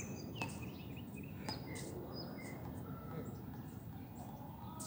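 Small birds chirping in short scattered notes, with a few sharp knocks of the frontenis ball, about half a second and a second and a half in.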